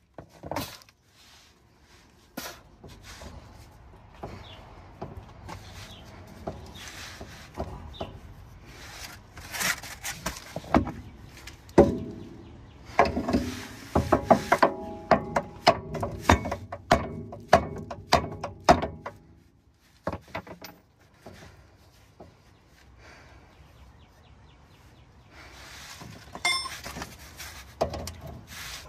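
Repeated metal-on-metal hammer blows, each a sharp strike with a short ring, on the steering center link under a 1995 Mercedes-Benz E320 (W124), knocking its tapered ball joint to drive it out of its seat. The strikes come in a long irregular flurry through the middle, then pause, then resume near the end.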